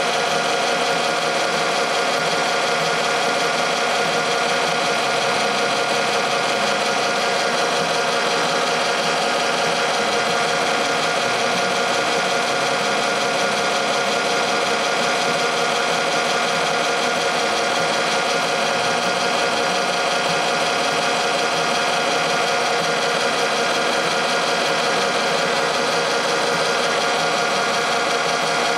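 Electric motor of a lapidary grinding and polishing machine running steadily, with a constant whine and no change in speed.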